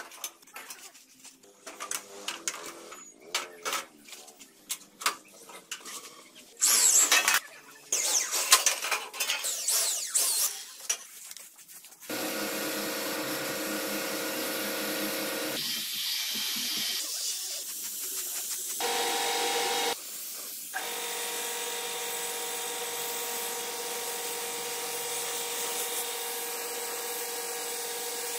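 Scattered knocks and clatter as a buggy's brake drum and wheel hub are handled, then a steady hiss from a compressed-air spray gun painting, with a steady hum under it; the spraying breaks off briefly twice.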